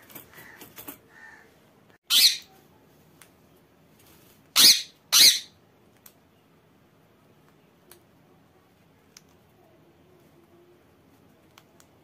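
Ringneck parakeets squawking: three loud harsh squawks, one about two seconds in and a close pair a couple of seconds later, after some softer chattering calls at the start. A few faint clicks follow.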